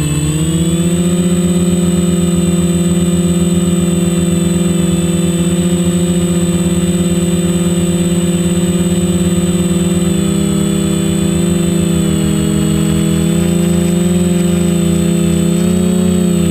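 Quadcopter's electric motors and propellers whining steadily in flight. The pitch dips briefly at the start and again near the end as the throttle is eased and brought back up. A thin, steady high tone sits above the motor whine.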